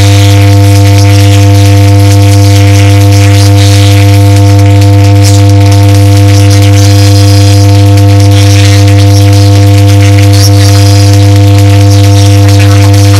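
Loud, steady electrical buzz, a low drone with several higher steady tones above it, and pop music faint beneath it.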